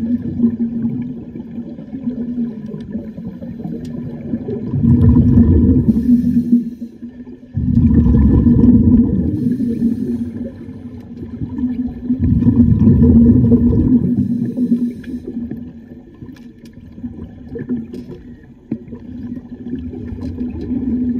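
Scuba divers breathing through their regulators, heard underwater: loud gurgling surges of exhaled bubbles every few seconds, three big ones in the middle, over a steady low hum.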